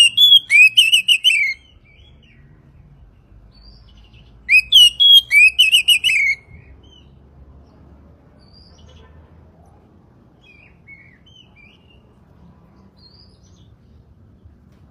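Oriental magpie-robin (kacer) singing two loud bursts of quickly repeated whistled notes, each lasting about two seconds, the second beginning about four and a half seconds in. Fainter chirps from other birds follow.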